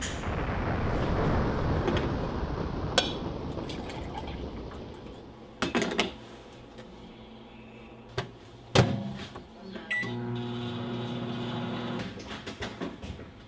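Kitchen sounds around a drip coffee maker: a rushing, liquid-like noise fades over the first few seconds, the glass carafe is handled with several sharp clicks and knocks, and a steady appliance hum runs for about two seconds near the end.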